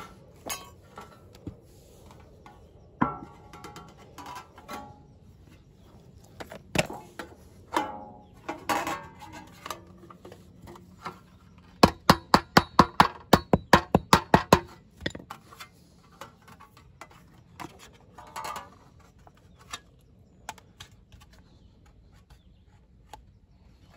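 Thin copper sheet being snipped and crinkled with shears, then a quick run of about a dozen sharp hammer strikes on the copper laid on a wooden board, about four a second, the loudest part. After that come a few light rustles and taps as the sheet is folded by hand.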